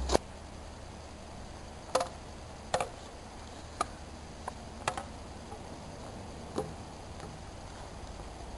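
Sharp clacks of a plastic toy sword being struck in a play sword fight, about seven at uneven intervals over a faint background hiss.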